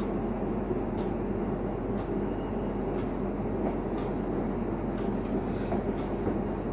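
Steady low rumbling room noise with a mains-type hum, and a faint tick about once a second.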